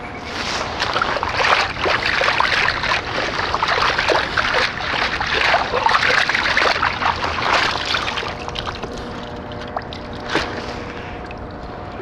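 A long-handled metal sand scoop digging into wet sand under shallow water: splashing, sloshing and crackling wet sand for about eight seconds, then quieter trickling as water drains through the perforated basket, with one sharp knock near the end.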